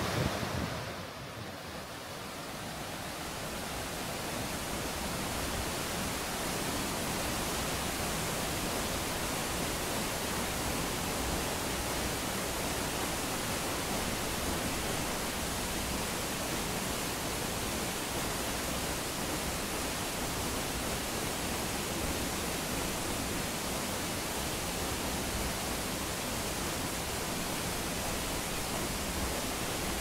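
Steady rushing of a powerful high waterfall, an even hiss across all pitches. It dips briefly about a second in, then holds unchanged.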